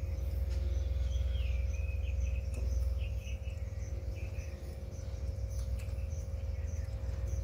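A few faint, short chirps from a rose-ringed parakeet over a steady low hum.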